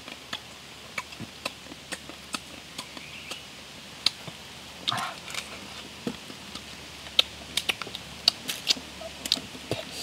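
A person eating cooked crab close to the microphone: chewing and lip smacks with a run of short sharp clicks, busiest in the second half, as crab meat is pulled from the shell.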